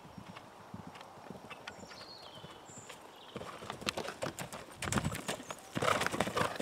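Hoofbeats of a horse cantering, faint at first and getting much louder from about halfway as the horse comes close.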